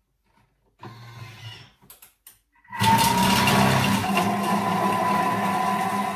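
Thermomix food processor chopping halved onions at speed 5: its blade motor starts about three seconds in and runs loud and steady with a slightly rising whine. Before it comes a short, quieter whir and two clicks.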